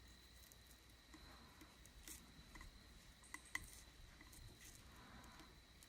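Near silence with faint scratchy rubbing and a few small clicks, the sharpest about three and a half seconds in: fingers peeling and rolling dried glue and resist film off a tumbler.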